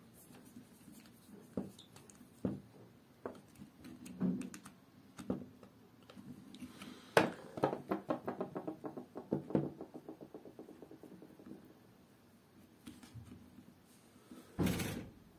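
Hands working an electric drill's trigger switch, wires and power cord: scattered small plastic clicks and taps, with a quick run of clicks about seven seconds in that lasts a few seconds, and a short louder scrape near the end.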